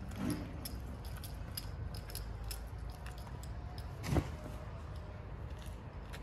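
A cat chewing wet cat food, with irregular small wet clicks, over a steady low rumble. A single dull thump about four seconds in is the loudest sound.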